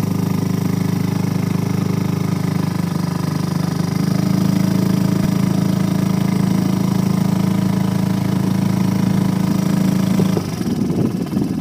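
Small outboard motor running at a steady speed, pushing an inflatable boat along. It shuts off abruptly about ten and a half seconds in.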